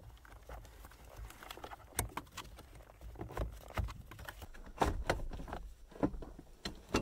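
Irregular knocks, clicks and scrapes of a replacement PTC cabin heater being handled and pushed into place in a car's footwell, squeezed in under the parking brake, with glove and trim rustling between the knocks. The sharpest knocks come about two seconds in and again around five, six and seven seconds.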